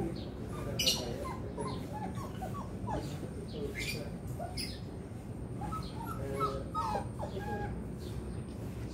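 Beagles whining in a string of short, high whimpers, with a few bird chirps over them.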